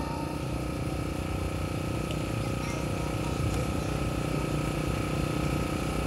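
An engine running steadily, a low rumble with a faint constant whine on top.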